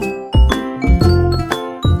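Background music: a bright, upbeat track with bell-like tinkling notes over a steady bass beat.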